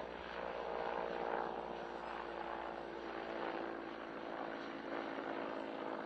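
Large firefighting helicopter flying overhead with a water bucket slung beneath: a steady drone of engines and rotor with an even whine.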